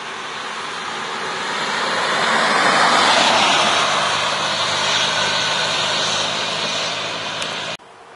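1967 Jeepster convertible driving past: engine and tyre noise build as it approaches, peak about three seconds in as it goes by, and stay strong as it pulls away, then cut off suddenly near the end.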